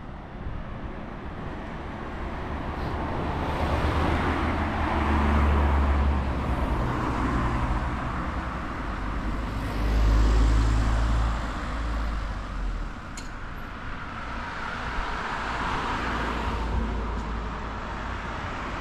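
Road traffic: cars passing one after another, each a rumble with tyre noise that swells and fades, the loudest passes about five and ten seconds in.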